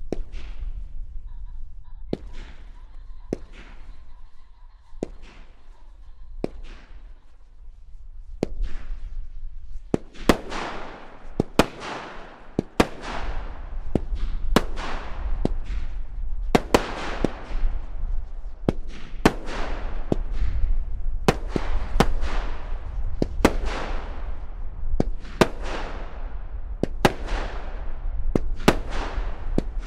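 A 36-shot multishot fireworks cake firing, with comets and bouquets of flying fish. The shots are spaced about a second or more apart at first. From about ten seconds in they come faster, each sharp shot followed by a long fizzing, crackling tail that dies away.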